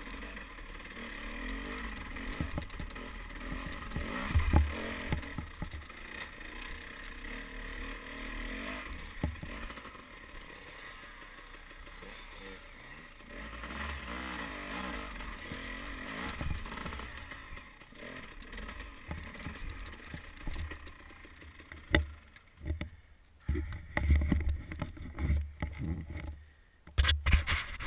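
Dirt bike engine running along a rough trail, its revs rising and falling, with knocks from the bumpy ground. About 22 seconds in the engine sound drops back and irregular low thumps take over.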